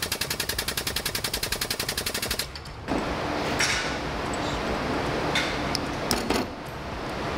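Air-powered shop press pulsing rapidly at about ten strokes a second as a spherical bearing is pressed into an aluminium suspension link; it stops a little over two seconds in. After it come small metal scrapes and a few sharp clicks as a C-clip is worked into the bearing bore.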